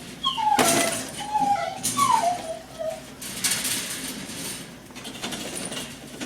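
A cat meowing three times, each short cry falling in pitch, with bursts of metallic rattling from a wire cage as it climbs.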